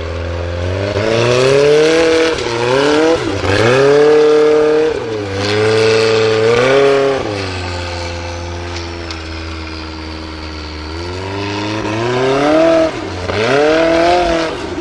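Formula Offroad unlimited-class buggy's engine revving hard under load on a steep dirt climb, the revs rising and dropping several times as the throttle is worked, holding lower for a few seconds in the middle before climbing again.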